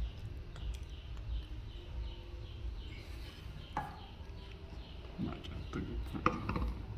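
Animal chirping: a quick run of short, falling high chirps, about three a second, over a low rumble, followed by a few lower voice-like sounds near the end.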